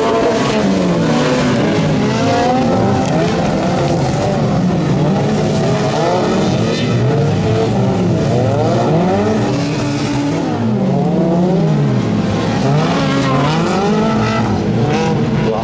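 Several front-wheel-drive autocross cars racing on a dirt track, their engines revving up and down through the gears and overlapping one another.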